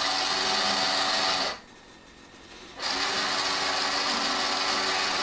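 Drum sail winch of a Hurricane 1000 RC yacht running, reeling the winch line along the deck with a steady geared-motor whine. It stops about a second and a half in, pauses for about a second, then runs again.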